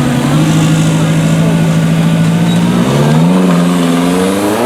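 Off-road 4x4 vehicle's engine running hard at a steady pitch. About three seconds in it revs up a step, and it climbs again near the end.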